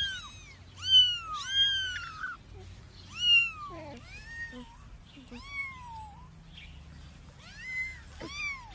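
Young kittens mewing repeatedly: high-pitched mews that each rise and then fall in pitch, about eight in all.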